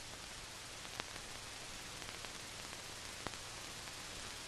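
Steady hiss of an old film soundtrack, with two faint clicks, one about a second in and another after three seconds.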